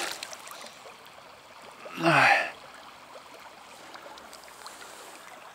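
Faint trickling of river water as a square lift net is raised on its pole, with a man's short sigh, falling in pitch, about two seconds in.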